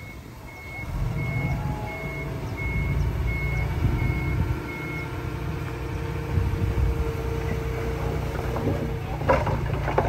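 Heavy diesel earthmoving machine backing up, its reversing alarm beeping about twice a second until it stops about five seconds in, over the engine's low running, which grows louder about a second in. A few sharp knocks and clatter near the end.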